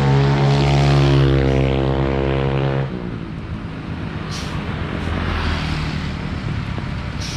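Hino RK8 R260 bus's inline-six turbo diesel pulling hard up a steep driveway with a strong steady drone, which drops away suddenly about three seconds in, leaving a quieter engine and road noise.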